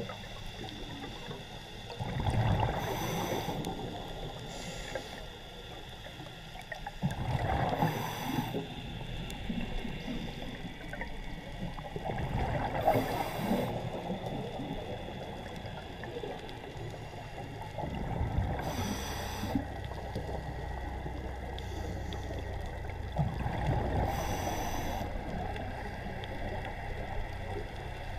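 Scuba diver breathing underwater through a regulator: a gurgling burst of exhaled bubbles about every five seconds, five in all, with a steady hiss between breaths.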